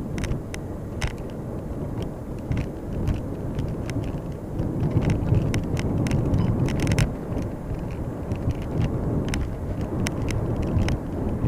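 A car driving, heard from inside the cabin: steady low road and tyre rumble, with frequent sharp clicks and small knocks as it goes over a rough road surface.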